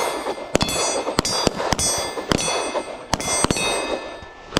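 A string of pistol shots at steel targets, fired at an irregular pace while walking, each hit leaving the steel plate ringing.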